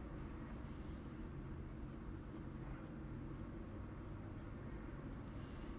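Faint scratching of a colored pencil drawn in short, light strokes across kraft cardstock, over a steady low hum.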